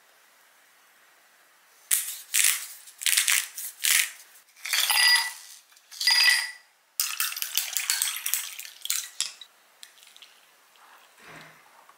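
Ice cubes tipped from a bag into a glass tumbler, a run of sharp clinks and rattles with the glass briefly ringing twice. Near the end comes a faint pour of espresso over the ice.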